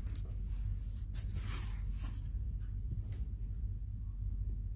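Light rubbing and handling sounds as the framed wooden puzzle is moved, with a soft scraping swish about a second and a half in, over a steady low hum.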